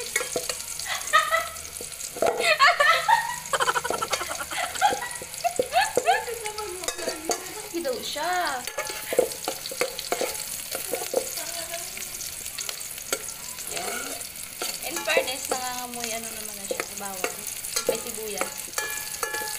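Sliced onions sizzling in oil in a rice cooker's aluminium pot, with a metal spoon scraping and stirring them. Intermittent sliding, pitched sounds come and go in the background and make up the loudest moments.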